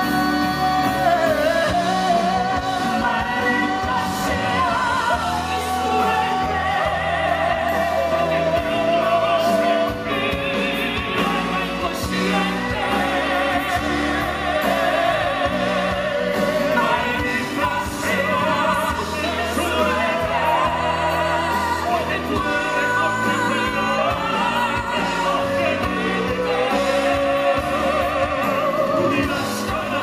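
Male classical-crossover singers performing a Spanish-language ballad live, with sustained, vibrato-laden sung notes over instrumental backing.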